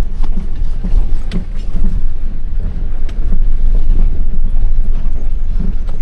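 Excavator's diesel engine running steadily as a deep, loud rumble, with a few sharp knocks a second or so apart.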